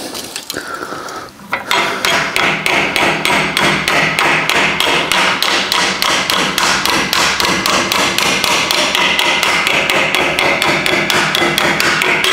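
Hammer striking a sheet-metal patch on a bench vise: a fast, even run of metallic blows, about four or five a second, starting about a second and a half in. The blows are squaring up and crisping a folded edge on the patch.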